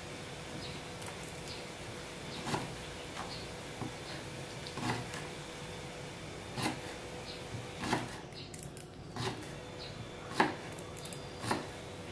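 Kitchen knife chopping garlic on a wooden cutting board: irregular short, sharp knocks about once a second, the loudest about ten seconds in, over a faint steady hum.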